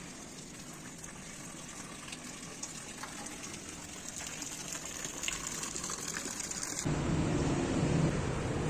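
Small courtyard fountain splashing steadily, its thin water jet falling into a shallow basin. About seven seconds in it cuts abruptly to louder street traffic noise.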